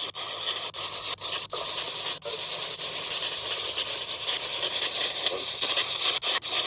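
Spirit box sweeping radio stations: steady radio static, chopped by brief gaps roughly every half second to a second as it jumps from station to station.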